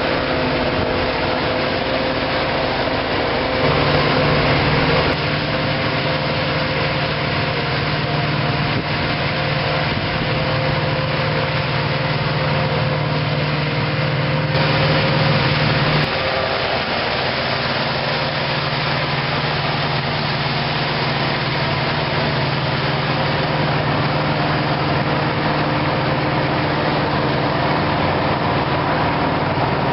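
Farm machinery engines running steadily during a maize silage harvest, with a constant low engine hum under a noisy working din. The engine note shifts abruptly a few times: about 4 seconds in, around 5 seconds, and again between about 14 and 16 seconds.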